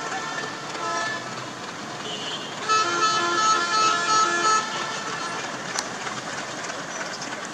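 Diesel locomotive horn: a short blast at the start, then a longer, louder blast of several tones sounding together from about three seconds in, over the engine running as the locomotive creeps forward.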